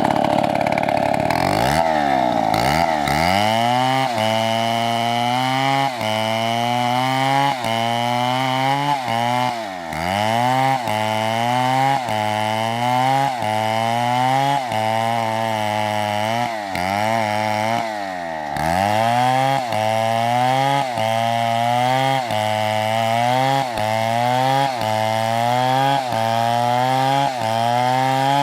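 Chainsaw engine running hard through wood, its pitch sagging and recovering about once a second as the chain bogs under load, with a few deeper dips.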